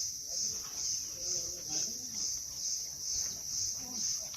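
A cricket chirping steadily in an even rhythm of about two pulses a second, with faint voices underneath.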